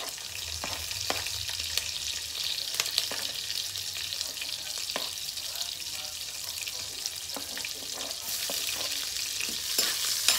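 Chopped green chili sizzling as it is scraped into hot oil and spice seeds in an aluminium wok, with sharp clicks of a spoon against the cutting board and pan. The sizzle grows louder near the end as stirring begins.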